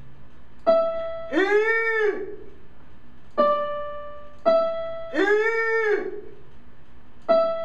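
An electronic keyboard sounding short held E5 notes, with two arched, trumpet-like elephant calls in between that rise and then fall in pitch.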